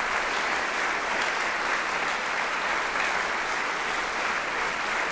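Audience applauding steadily, a dense even clapping with no breaks.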